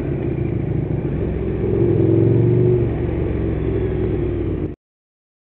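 Motorcycle engine running under way, heard from the rider's position with road and wind rush. The engine gets louder and its pitch rises about two seconds in, then the sound cuts off abruptly near the end.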